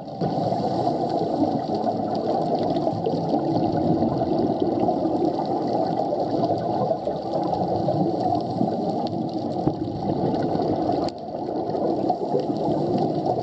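Underwater gurgling and rushing of scuba divers' exhaled bubbles streaming from their regulators, picked up by an underwater camera, steady apart from a brief drop about eleven seconds in.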